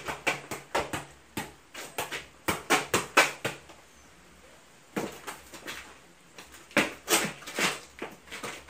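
Football being juggled: a quick run of sharp touches of foot and knee on the ball, echoing off the walls of a small bare room, with a short lull about four seconds in before the touches pick up again.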